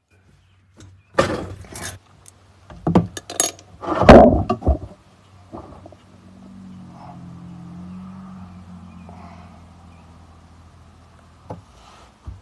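Irregular metal clanks and scrapes of a ratchet and socket working loose the oil drain plug of a Kawasaki Teryx 750 UTV, loudest in a few knocks between one and five seconds in. Then comes a faint, steady rush that swells and fades as the plug comes out and the engine oil drains.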